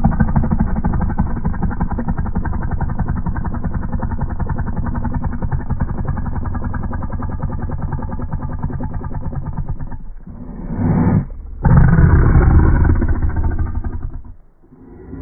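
Snow leopard growling and snarling at close range: one long, rumbling growl for about ten seconds, then after a brief break a louder growl that stops about a second before the end, with a quieter growl starting again at the very end.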